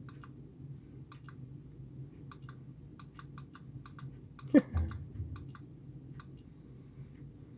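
Small push-buttons on a SEQURE T55 SMD soldering hot plate clicking again and again at an irregular pace as they are pressed to step through its menu. A brief low vocal sound comes about halfway through.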